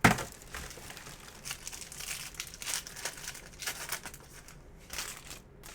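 Plastic wrapping of a box of trading cards being torn open and crinkled by hand. There is a sharp tear right at the start, followed by irregular crackling.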